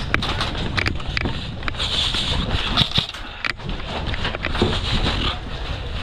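Steady rushing wind noise on the microphone as a player moves, with scattered sharp clicks and knocks.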